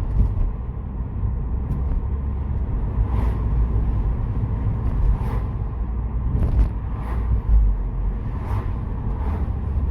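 Ford Focus ST225's turbocharged five-cylinder engine and road noise heard from inside the cabin while cruising in fifth gear: a steady low rumble.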